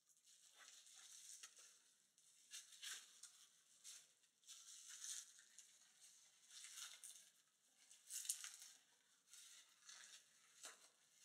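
Faint crinkling and rustling of plastic packing wrap being handled and pulled open by hand, coming and going unevenly with a few light clicks.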